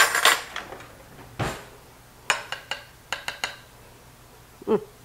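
Metal spoon clinking and tapping against a glass mixing bowl while scooping creamy dressing out for a taste: a few sharp clicks at the start, a duller knock, then a quick run of light clinks in the middle.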